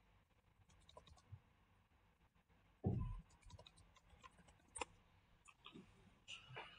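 Faint, scattered computer keyboard keystrokes and clicks as a password is typed and submitted, with one louder low thump about three seconds in.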